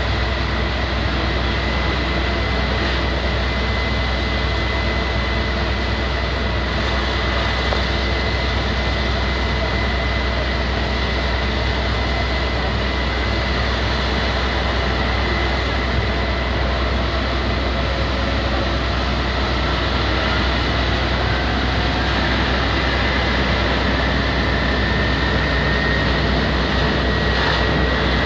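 Fire engine running steadily while it pumps water to a hose: a constant deep hum with a steady high whine over it.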